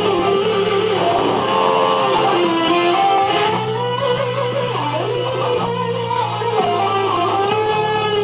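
Distorted Schecter electric guitar playing a melodic metal lead solo, with held notes that waver in pitch and slide between notes. It plays over a backing track with drums and a steady low bass line.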